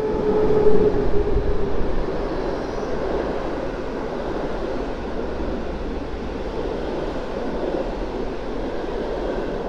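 Express passenger train hauled by an EP09 electric locomotive passing at speed underneath: a steady tone and the loudest noise in the first two seconds as the locomotive goes by, then the even rushing noise of the coaches rolling past.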